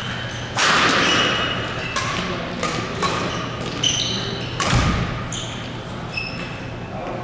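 Badminton rackets striking the shuttlecock in a fast doubles rally, several sharp hits a fraction of a second to a second apart, the hardest about half a second in and again near the end. Short high squeaks from sneakers on the court floor come between the hits.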